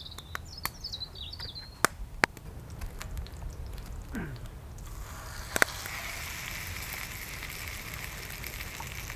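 A small wood fire crackling in a hobo stove, with a few sharp cracks and a bird chirping at first. About halfway through a pan clacks down onto the stove and lamb steak starts sizzling on the hot pan, a steady loud sizzle that lasts to the end.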